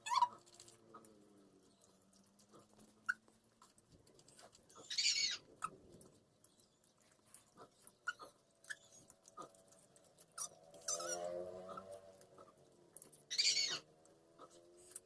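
Someone eating juicy pineapple close to the microphone: wet crunching bites and slurps three times, with small mouth clicks of chewing between them and a low hum now and then.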